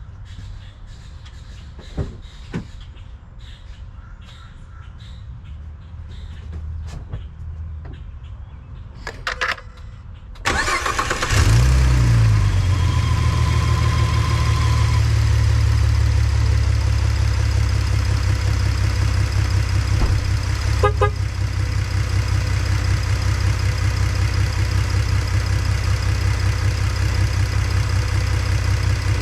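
Car engine cranked by the starter about a third of the way in. It catches within about a second, flares briefly and settles into a steady, smooth idle on newly fitted spark plugs, with a slight tick that the owner can only assume is lifter tick. A few light clicks and knocks come before the start.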